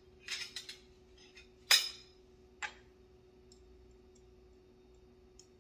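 Metal spoon clinking and tapping against small glass cups as seasoning is measured out: a few sharp clinks in the first three seconds, the loudest near the middle of them, then only faint ticks. A steady faint hum runs underneath.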